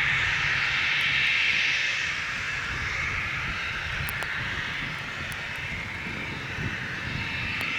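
Aircraft engine noise: a steady rushing sound with a low rumble, loudest in the first couple of seconds and then easing slightly.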